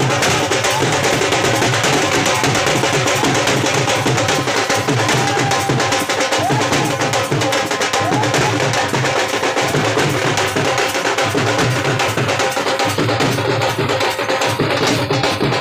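Several Punjabi dhol drums played together in a dense bhangra beat: deep bass-head strokes under sharp stick cracks, loud and unbroken.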